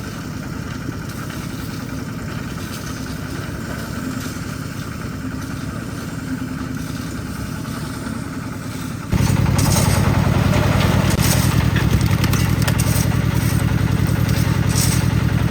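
Concrete mixer's engine running steadily, becoming suddenly louder about nine seconds in.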